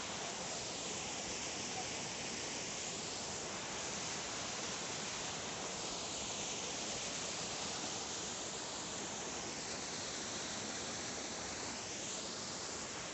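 Waterfall's rushing water: a steady, even roar of falling water whose tone shifts slowly back and forth.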